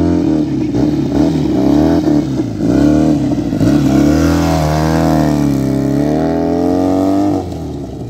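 Benelli TNT 300 parallel-twin motorcycle with an aftermarket Akrapovic exhaust, revving up and down as it rides. The engine note rises and falls in pitch several times, swells in one long sweep as the bike passes close, then drops in level near the end as it moves away.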